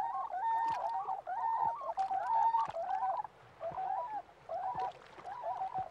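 A flock of tundra swans calling: many overlapping high, mellow hooting notes. The calls are densest at first and thin out about halfway through.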